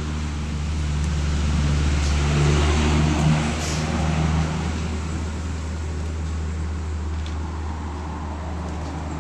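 Motor vehicle traffic rumbling past, a steady low engine hum with a louder swell about two to four seconds in as a vehicle goes by, then easing off.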